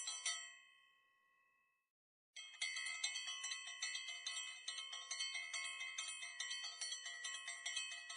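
Small bells or chimes struck in a rapid, even run, about four strikes a second, their tones ringing on over one another. The ringing fades away in the first second, stops completely, and starts again at full strength at about two and a half seconds.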